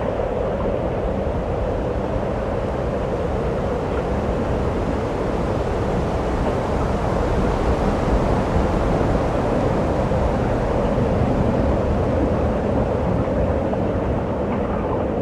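Steady wind noise buffeting the microphone, a continuous rumbling hiss with no breaks.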